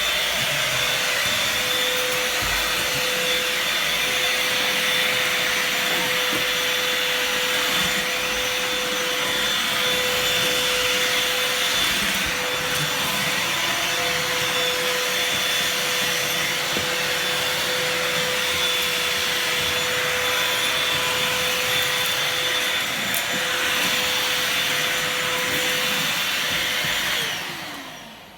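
Bosch GAS 18V-1 cordless handheld vacuum cleaner running steadily: a constant airflow hiss with a steady whine. It is switched off near the end, and the motor's pitch falls as it spins down.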